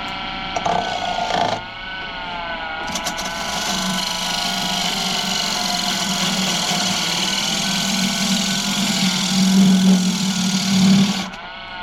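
Wood lathe motor running steadily while a turning gouge cuts into a spinning bowl blank. The hiss of the cut comes in briefly at first, then runs steadily from about three seconds in, with the lathe's hum growing heavier under load, and stops shortly before the end.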